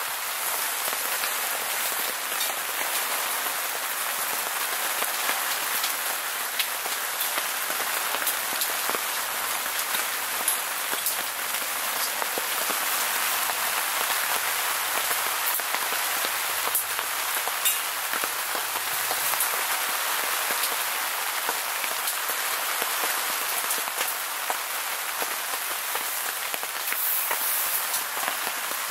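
Heavy rain falling steadily on a tent, an even hiss with a few sharper single drops now and then.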